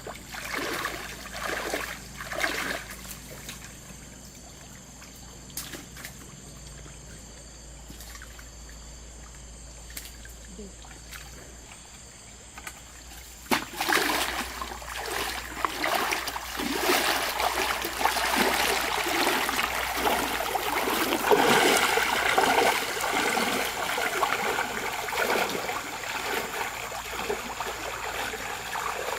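Water splashing and trickling, with a few splashes at first, then a quieter stretch, then suddenly louder, continuous splashing and churning about halfway through.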